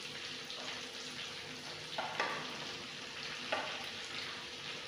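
Masala-coated fish pieces sizzling steadily in oil on a plain iron roti tawa, with a few light knocks as plastic cups are set on a plate.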